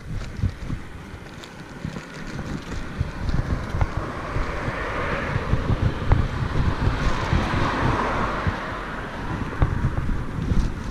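Wind buffeting the microphone of a body-worn camera during a walk, a steady low rumble, with a rushing noise that swells through the middle and fades near the end.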